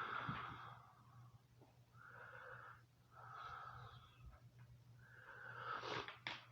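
Breathing close to the microphone: four breathy, wheezy breaths of about a second each, over a faint steady hum.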